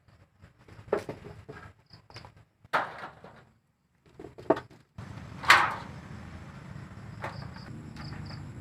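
A few separate knocks and clatters, the loudest about five and a half seconds in, over a low steady background hum with faint paired high chirps.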